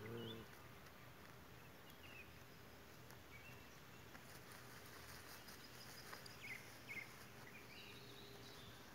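Quiet outdoor background with a few faint, short high chirps, most of them about six to seven seconds in. At the very start the tail of a low, drawn-out animal-like call fades out.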